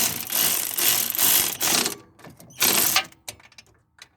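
Power ratchet driving in the tensioner pulley's mounting bolts with a fast mechanical rattle: one long run, then a short burst about two and a half seconds in. The tool has reached its limit, the bolt now too tight for it to turn further.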